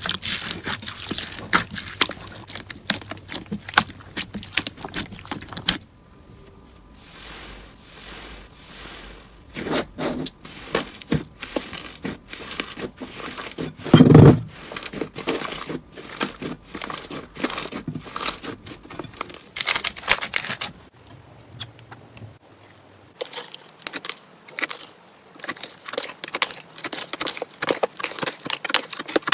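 Slime being squeezed, pressed and stretched by hand, with rapid crackling and popping clicks. There is a quieter stretch about a quarter of the way in and one louder squish near the middle, across several short clips.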